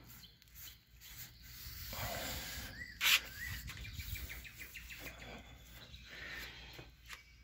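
Faint rubbing of a wet paper towel over a painted steel tailgate, with a bird chirping and giving a quick trill in the background. A single sharp click about three seconds in is the loudest sound.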